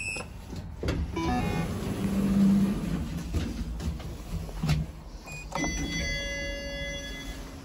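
Orona passenger lift in operation, heard from inside the car: a steady low rumble of the car and its machinery, a low hum about two seconds in and a knock a little before the five-second mark. Near the end an electronic chime rings and fades out over about two seconds.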